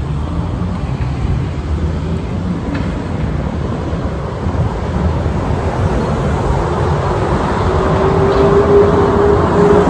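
Wind buffeting the phone's microphone over city traffic noise, with a vehicle's slowly rising whine coming in over the last few seconds.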